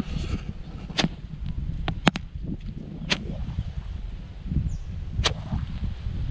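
Sharp cracks at irregular intervals, about five in all with a close pair about two seconds in, over a steady low rumble.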